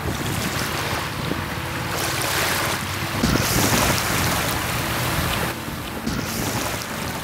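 Small waves washing in over a pebbly, shell-strewn shoreline, with wind buffeting the microphone; the sound eases a little about five and a half seconds in.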